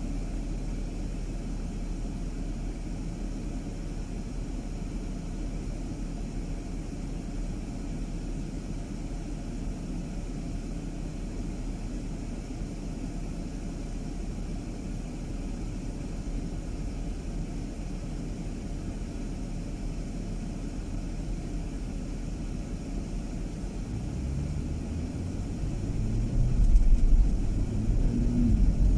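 Car driving: a steady low rumble of road and engine noise. It grows louder near the end, with a low hum that climbs in pitch.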